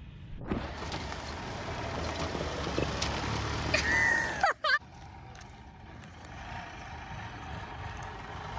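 Golf cart driving on a gravel driveway: a steady rumble of tyres and wind that grows louder over the first four seconds, with a brief high falling squeal just before it cuts off; then a quieter, steady rumble.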